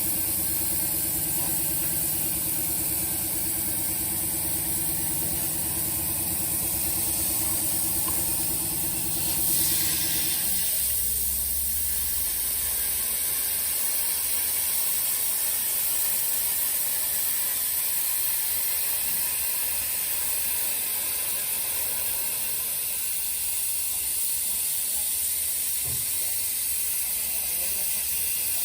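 CNC plasma cutter hissing steadily as it cuts thin steel sheet. A motor hum underneath stops about ten seconds in, just after a brief louder burst of hiss.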